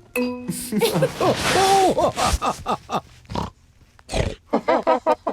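Cartoon pig characters grunting and snorting in Peppa Pig style, with a quick run of short repeated snorts near the end. A brief steady tone sounds right at the start.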